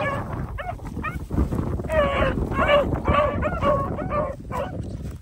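A pack of beagles baying while they run a rabbit. Short high calls come one after another, about two a second, with several voices overlapping.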